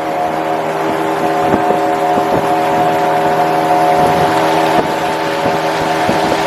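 Inboard engine of a motorised sampan (river boat) running steadily under way, a constant drone with even harmonics over water and wind noise.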